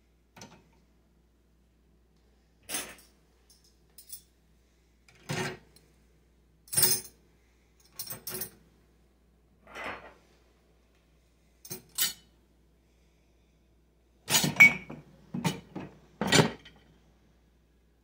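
Ceramic mugs, plates and metal spoons clinking and knocking against each other and the wire racks as a countertop dishwasher is loaded: a string of separate clinks a second or two apart, with a louder run of clatters a few seconds before the end.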